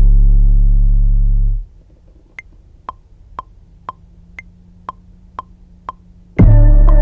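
Electronic instrumental beat: a heavy sustained bass note fades and cuts off about a second and a half in, leaving a steady metronome-style click at two ticks a second, every fourth tick higher and accented. The full beat comes back loud near the end.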